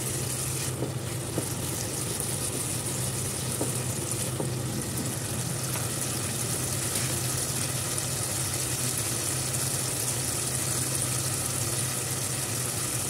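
Tomato masala gravy sizzling steadily in oil in a kadhai as it cooks down until the oil separates, over a steady low hum.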